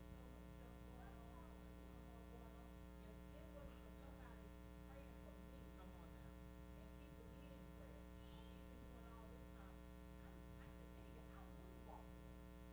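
Near silence: a steady electrical hum on the recording, with faint, indistinct voices.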